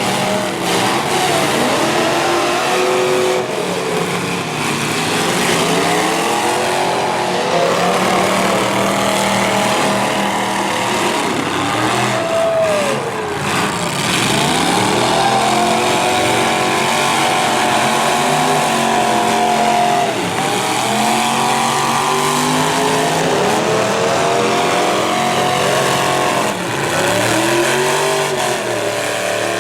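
Several V8 demolition derby cars running at once, their engines revving up and down again and again.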